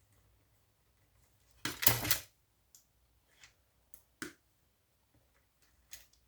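Hand tools working on a power-supply circuit board: a short clattering scrape about two seconds in, then a handful of sharp clicks, like snips or pliers cutting and prying off components.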